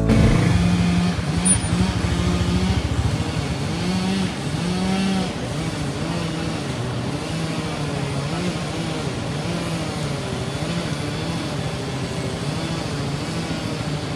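A motor vehicle engine running on the move, its pitch rising and falling, over a steady rush of road and wind noise. It is loudest in the first few seconds, then settles to an even level.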